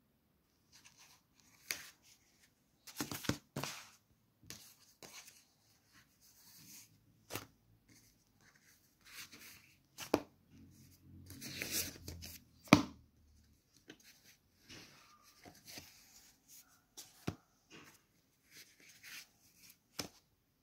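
Thin paper books and booklets being handled and leafed through: pages and card covers rustle, slide and tap against one another in short, irregular bursts, with a longer rustle and a sharp tap a little past halfway.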